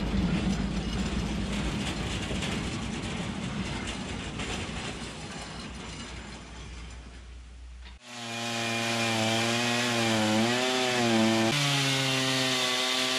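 Homemade bandsaw mill sawing through a large elm log, engine running and blade cutting steadily, slowly growing quieter. About eight seconds in it cuts off abruptly and background music with sustained notes takes over.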